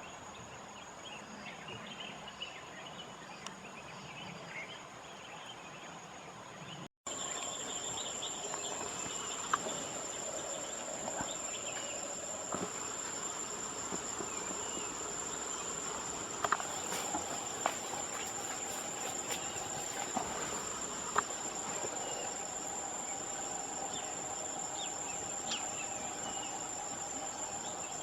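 Outdoor insect chorus: a steady high-pitched drone of crickets or similar insects, with scattered faint chirps and clicks. About seven seconds in the sound cuts out for an instant and comes back slightly louder.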